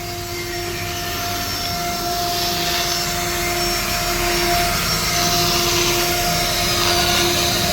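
Stone-cutting CNC router running: a steady motor whine over a hiss of cutting noise, slowly growing louder.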